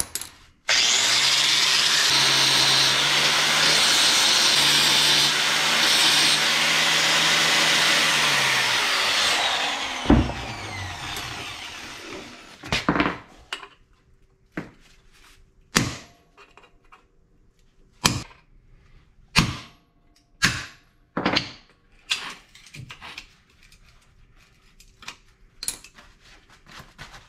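Angle grinder cutting the rivet heads off the backing plate of a Yamaha Banshee clutch basket for about nine seconds, then winding down. This is followed by about a dozen sharp hammer blows on a punch, spaced a second or two apart, driving the rivets out.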